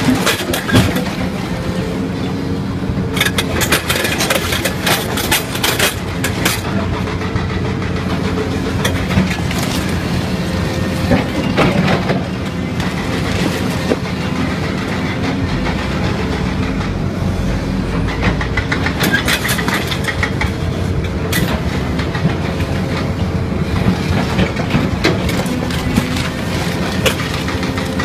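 Excavator-mounted hydraulic vibro ripper working into rock, over the excavator's steady engine and hydraulic drone. Clusters of sharp cracking and clattering come several times as rock breaks and shifts.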